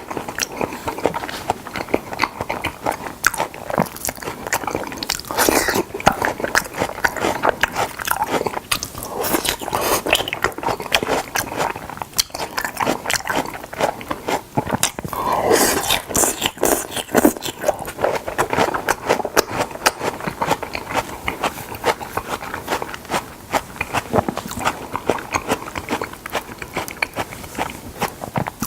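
Close-miked eating of raw salmon: wet chewing and smacking with dense, irregular mouth clicks throughout.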